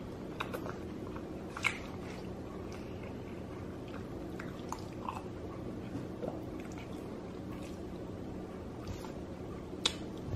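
A person eating pasta from a bowl with a fork: quiet chewing, with a few sharp clinks of the metal fork against the ceramic bowl, the loudest about two seconds in and near the end. A steady low hum runs underneath.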